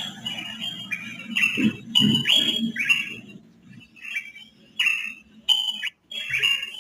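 Birds chirping: a run of short, sharp calls, many sliding downward in pitch, coming about two a second with a pause in the middle.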